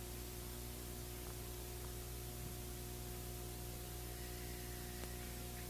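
Steady hiss with a low electrical mains hum, the background noise of the recording itself; no other sound stands out.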